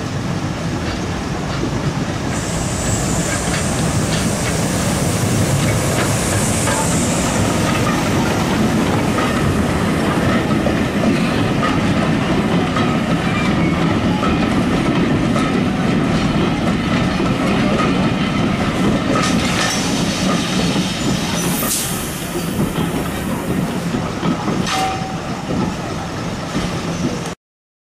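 A British Railways class 03 diesel shunter hauling a train of vintage carriages past at low speed: the engine running under load and the coach wheels clicking over the rail joints, with a high hiss a couple of seconds in. The sound cuts off suddenly near the end.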